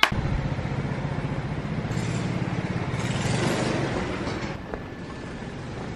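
Street traffic noise: a vehicle goes by, growing louder about two seconds in and fading after about four seconds.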